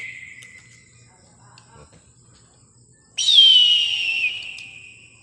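A high whistle tone that starts suddenly about three seconds in, slides down in pitch and fades away over about two seconds; the dying tail of a similar falling whistle is heard at the very start.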